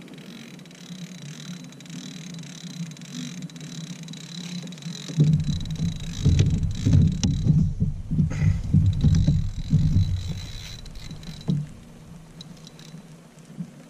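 Knocking and low rumbling from handling in a Hobie Pro Angler 14 fishing kayak as the angler pulls a rod from its holder and starts reeling against a pull. It is quiet at first, then loud and uneven from about five seconds in until near the end.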